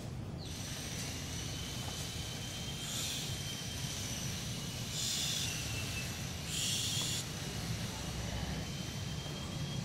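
A dog breathing: three short, breathy huffs a second or two apart, over a steady low hum.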